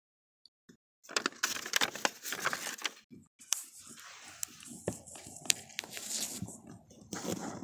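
Rubbing, rustling and knocking of a phone being handled and moved around, with many sharp clicks; it starts suddenly after about a second of silence.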